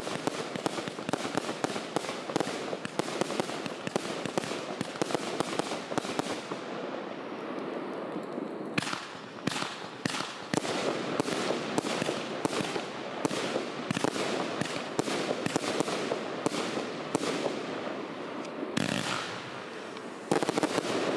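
A 96-shot consumer firework battery (cake) firing. The first seconds are a dense run of crackling and popping. From about nine seconds in come separate sharp bangs, about two a second, which are the salutes of its finale.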